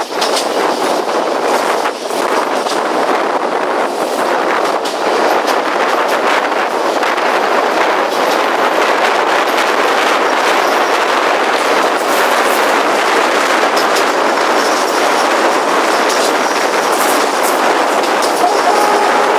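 Passenger train running at speed, heard from an open carriage window: a steady rush of air and rolling-wheel noise, with faint clicks of the wheels over the rails.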